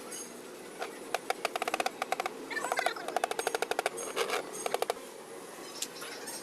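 Quick runs of sharp clicks from hand tool work on an engine, about a dozen a second, in three or four bursts between about one and five seconds in.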